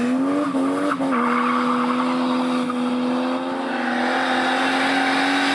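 Mercedes W210 E-class's tuned OM606 straight-six turbodiesel under hard acceleration. The engine note climbs and drops sharply twice in the first second as the 5G-Tronic automatic shifts up quickly, then holds a steady, slowly rising note.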